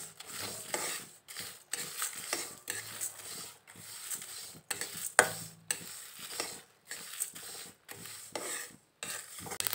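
Whole spices and dried red chillies dry-roasting in a metal kadai, stirred with a spatula that scrapes the pan in repeated strokes, about two to three a second. A few sharper clicks come from seeds starting to pop as they toast.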